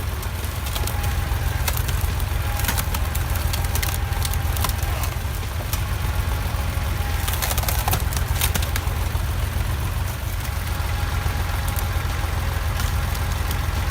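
An engine running steadily with a fast low pulse, with scattered sharp clicks and knocks over it, most of them a little past halfway.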